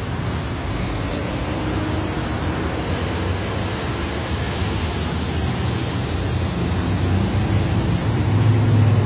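Heavy truck's diesel engine running steadily amid street traffic, a deep hum that grows louder near the end.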